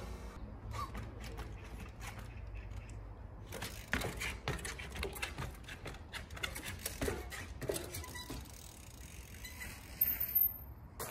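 Yeti mountain bike being hopped and balanced in trials riding: a run of irregular clicks and knocks, thickest from about four to eight seconds in, with a louder clatter near the end.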